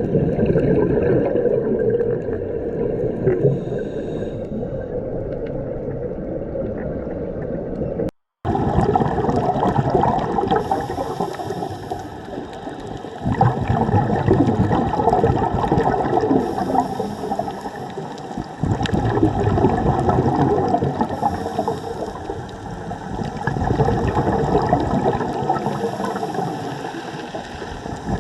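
Underwater scuba-diving sound: a steady gurgling rush of water, with a hissing burst of exhaled regulator bubbles about every four to five seconds. A brief cut to silence comes about eight seconds in.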